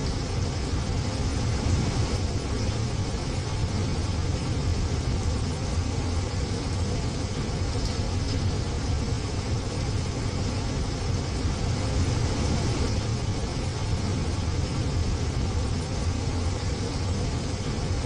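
Heavy rain beating on a window: a steady, unbroken hiss over a deep low rumble.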